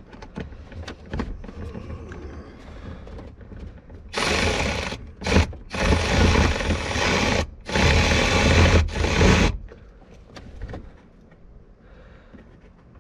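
Cordless ratchet running in four short bursts, one very brief, as it turns a fastener up under a truck's dashboard. Small clicks and knocks of hand work come before them.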